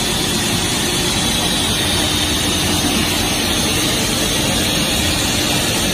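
PP hollow sheet extrusion line running: a loud, even machine whir and hiss with a faint steady hum underneath.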